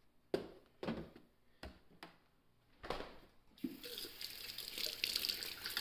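A few separate knocks and clunks, then a kitchen tap is turned on about three and a half seconds in and water runs steadily into the sink as hands are rinsed under it.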